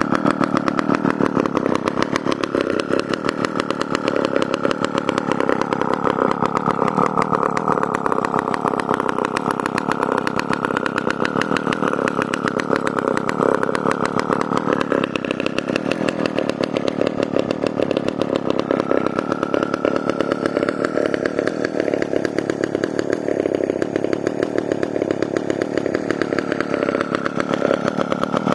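McCulloch Pro Mac 1010 two-stroke chainsaw engine running steadily, a fast, even rattle of firing pulses with no revving up or down.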